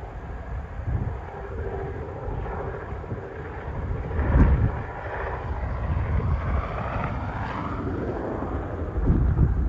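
Wind buffeting the microphone in gusts, loudest about four seconds in and again near the end, with a faint pitched hum that wavers in the middle.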